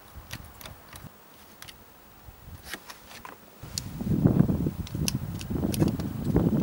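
A few light clicks and taps, then about three and a half seconds in, the heater blower fan of a Renault Mégane starts suddenly and runs with a loud, rushing hum. This would be the blower working again after the repair of its resistor's connector.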